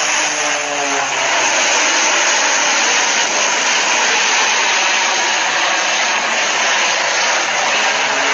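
Engines of a twin-engine propeller airplane running at high power, close by, a loud steady engine noise with no breaks.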